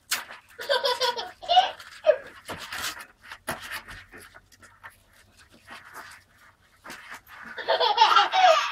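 Toddlers laughing and squealing in two bursts, one starting about half a second in and another near the end. Between them come scattered clicks and knocks of styrofoam packing and cardboard being handled.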